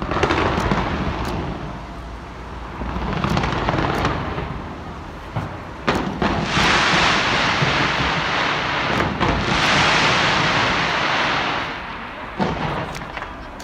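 Fireworks going off: swells of dense crackling hiss with a few sharp bangs, under a low rumble.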